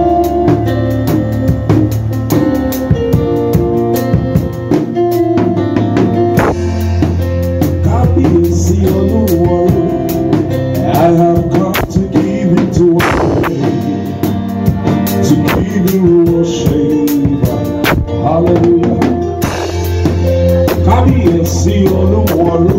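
Instrumental introduction of a gospel worship song: a steady drum-kit beat with bass drum and snare under sustained keyboard or guitar chords.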